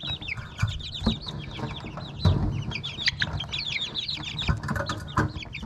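A brooder full of baby chicks peeping rapidly and continuously in short, high chirps, with a few sharp knocks scattered through.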